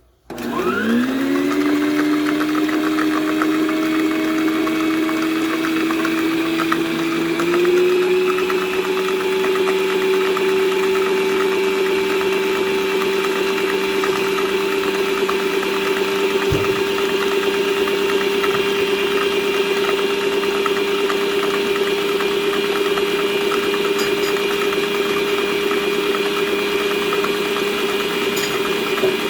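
Planetary stand mixer switched on, its motor whining up to speed within a second, stepping up in pitch once about seven seconds in, then running steadily while beating butter and sugar.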